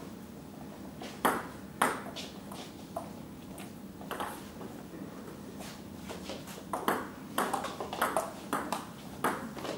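Table tennis ball knocking off paddles and the table: a few separate knocks in the first half, then a rally of quick alternating knocks, about two or three a second, from about seven seconds in.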